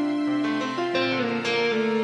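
Instrumental background music, a melody of held notes that change pitch about every half second.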